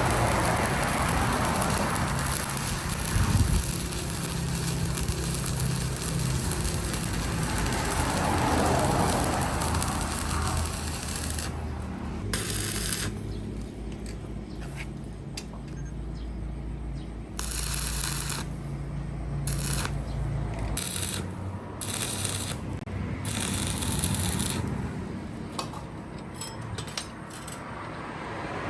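Metalworking noise: metal scraping and rattling over a steady low motor hum. About halfway through it breaks up into short, separate bursts, and the hum stops about two-thirds of the way in.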